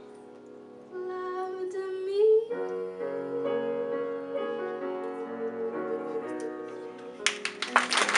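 Grand piano playing slow closing chords under a woman's sung note about a second in that slides upward near its end. The first scattered claps of applause start near the end.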